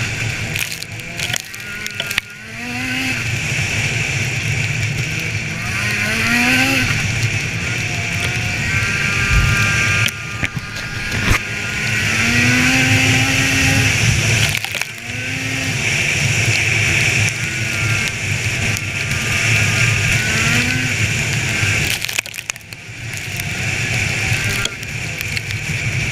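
Polaris snowmobile engine running under throttle on the trail, its pitch climbing and falling several times as the rider accelerates and eases off, over a steady high whine.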